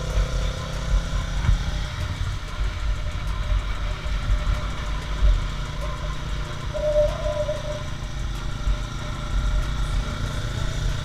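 Motorcycle riding at road speed, with heavy wind buffeting on the camera microphone over the running engine of a Honda sport bike. A short, higher tone sounds about two-thirds of the way through.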